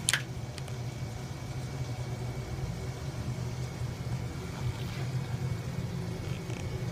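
A motor running with a steady low rumble, and one sharp click right at the start.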